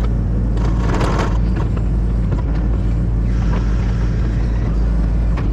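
An engine running steadily with a low, even rumble, and a short burst of noise about a second in.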